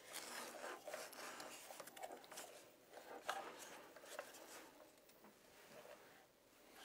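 Near silence: room tone with a few faint rustles and small clicks of handling.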